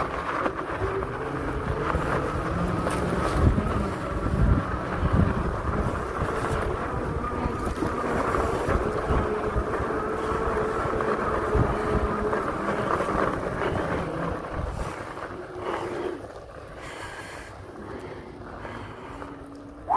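Two-wheel-drive fat-tire e-bike's electric motors whining at a steady pitch under power, with wind buffeting the microphone. The whine fades about three-quarters of the way through.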